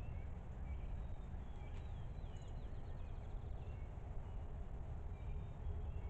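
Small birds calling in short, high chirps, with a quick trill about two and a half seconds in, heard through a trail camera's microphone over a steady low rumble.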